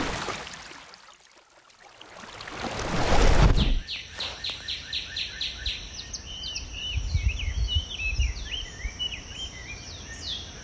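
A rushing whoosh that fades, swells again and cuts off sharply about four seconds in. Then birds chirp repeatedly, with quick rising and falling calls, over a faint steady high hiss.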